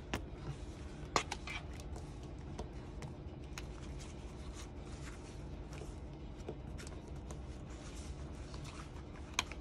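Packaging and paper being handled: faint rustling with a few sharp clicks and taps, over a steady low hum.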